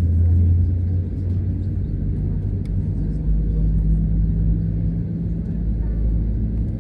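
Steady low rumble and hum of an Airbus A320neo's Pratt & Whitney PW1100G geared-turbofan engines at taxi power, heard inside the cabin from a window seat over the wing. It is loudest in the first second, then settles to an even level.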